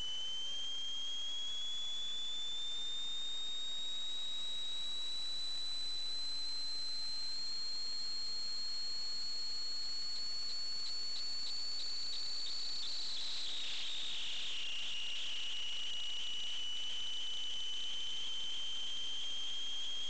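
Steady high-pitched electronic whine from a sewer inspection camera rig's electronics, carried on its recording. The pitch creeps slowly upward, drops about two-thirds of the way through, then creeps up again.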